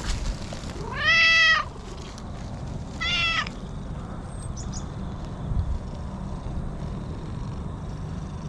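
Cat meowing twice while being brushed. The first meow comes about a second in and is longer and louder. The second, shorter one follows about two seconds later.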